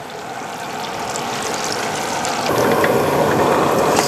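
Parboiled pork ribs going into hot oil in a wok to deep-fry: a steady sizzle that builds and grows louder about two and a half seconds in as more ribs slide into the oil.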